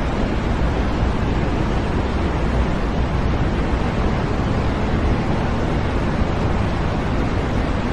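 Steady electronically generated white noise: an even, unbroken rushing hiss that does not change.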